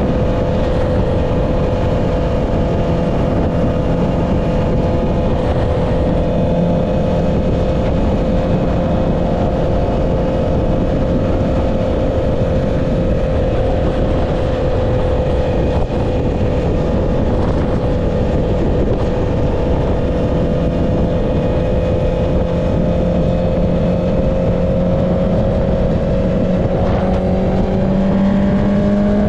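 Honda CB650R inline-four through an Akrapovic exhaust, running at steady revs while cruising. About 27 seconds in, the pitch climbs as it accelerates. A steady rush of wind noise sits under the engine.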